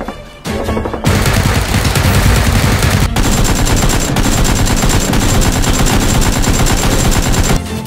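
Long, loud burst of rapid automatic gunfire, a continuous rattle of shots starting about a second in, briefly breaking near the middle and cutting off just before the end.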